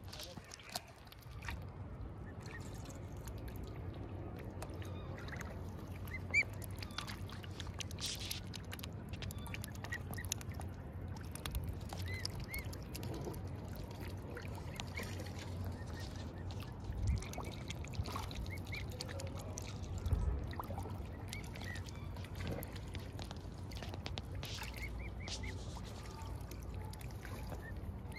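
Cygnets and goslings peeping: short high calls scattered throughout, over a steady low rumble.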